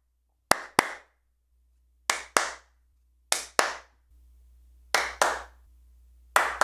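Hand claps in a living room, picked up by a Shure SM57 dynamic cardioid microphone at increasing distances: pairs of sharp claps about a third of a second apart, a pair roughly every second and a half, each clap followed by a short room echo.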